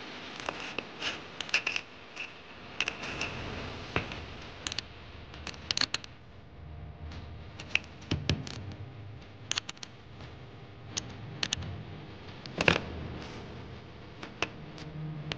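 Irregular small metallic clicks, taps and scrapes of a brass battery-terminal adapter and its bolt being fitted and tightened with a hex key and a small spanner.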